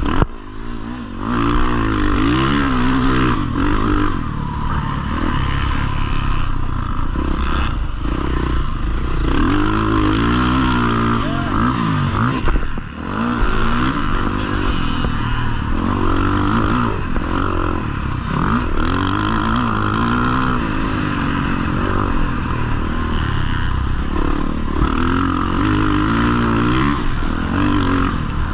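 Husqvarna FC 450 motocross bike's single-cylinder four-stroke engine, heard from on the bike, revving up and dropping off over and over as it is ridden at speed. The throttle shuts off briefly about a second in and again near the middle.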